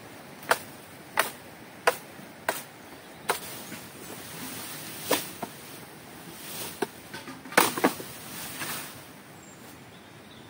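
Bamboo being chopped with a blade. Five sharp strokes land about two thirds of a second apart, then come a few more scattered strokes, and the chopping stops near the end.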